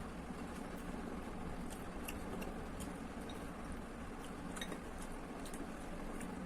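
Steady low background hum with a few faint light clicks and taps of kitchen utensils scattered through it.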